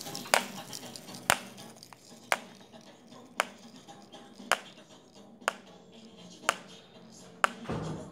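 Metal fidget spinner whirring on a tile floor, its hiss fading out within the first second or two as it slows. Over it, sharp single clicks come evenly about once a second.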